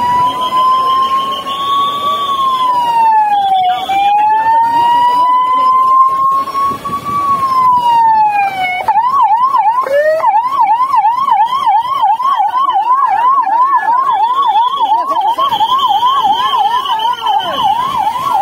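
Ambulance siren wailing with its pitch sliding slowly up and down, then switching about nine seconds in to a fast yelp of two to three rises a second, over the noise of a crowd.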